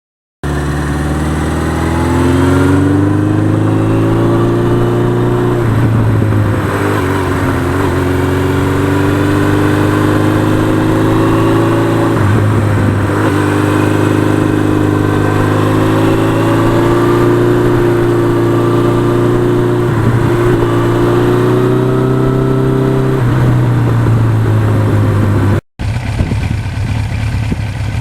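1982 Suzuki GS1100E's air-cooled inline-four engine running hard, its pitch climbing and then dropping back about four times. After a sudden break near the end, it runs at a lower, rougher pitch.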